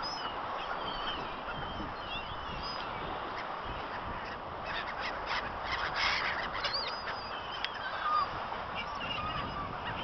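A flock of gulls calling, many short overlapping cries scattered through, busiest a little past the middle, over a steady background rush.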